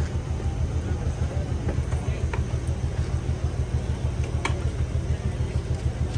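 A motor running steadily with a low, rapid throb, and a sharp click about two seconds in and another about four and a half seconds in.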